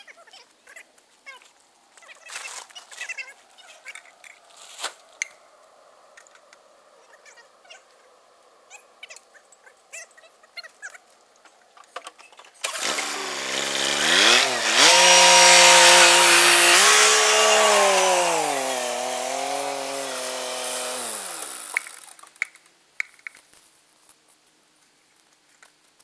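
John Deere loader tractor's engine starting abruptly about halfway through and running loud for about nine seconds, its pitch stepping up and down with the throttle, then dropping and cutting off. Before it, a few scattered light metal clanks.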